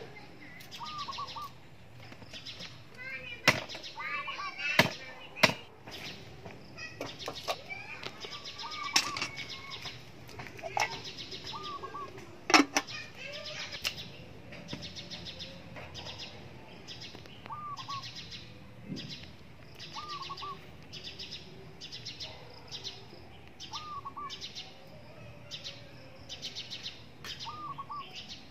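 Birds chirping steadily, with one short call repeating every two or three seconds, and a few sharp knocks of a small knife on a wooden cutting board, the loudest about four to five seconds in and near the middle.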